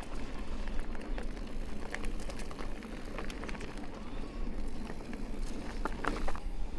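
Amflow electric mountain bike ridden over a dirt trail: tyres rolling with many small clicks and rattles, and wind rumbling on the microphone. A few short high chirps sound about six seconds in.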